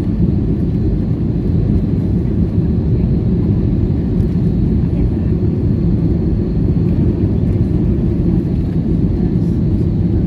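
Cabin noise inside an Airbus A320 on final approach: a steady low rumble of engines and rushing air, with a faint steady high tone.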